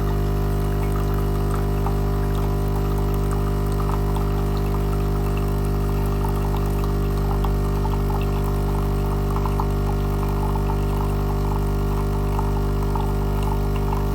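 Espresso machine's pump humming steadily as it brews, with a faint crackle over the hum.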